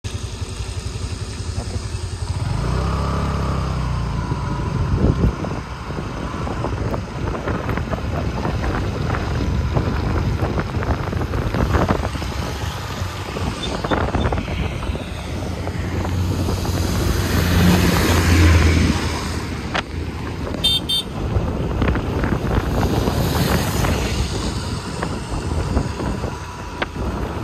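Motorcycle riding along a rain-wet road: the engine running under a steady rush of wind and tyre noise, with gusts buffeting the microphone.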